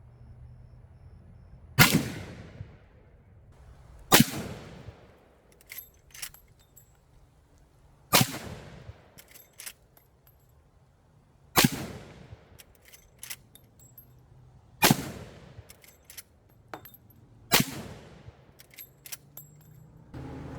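Six shots from a Marlin 1895 SBL lever-action rifle in .45-70, fired two to four seconds apart, each with a fading tail. Short metallic clicks of the lever being worked to chamber the next round come between the shots.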